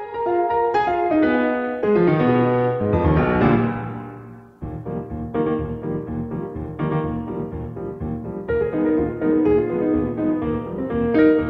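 Background music played on a piano-like keyboard: a run of notes stepping downward, then a fresh, lighter repeating figure starting a little past four seconds in.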